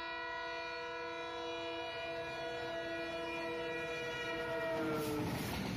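Indian Railways diesel locomotive horn held in one long blast, dropping in pitch and cutting off about five seconds in as the locomotive passes. The rumble of the train running past follows.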